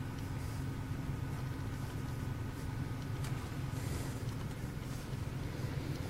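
BMW straight-six engine idling, a steady low rumble heard from inside the cabin, with a faint click a little over three seconds in.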